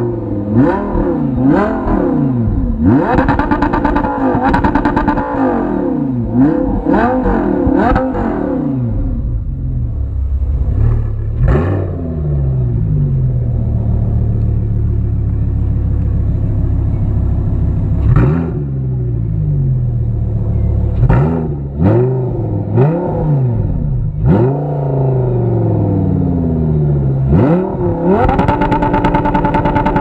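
Turbocharged car engine revved in repeated short blips, settling to a steady idle between them, with sharp chattering clicks as the revs drop off: turbo flutter when the throttle snaps shut.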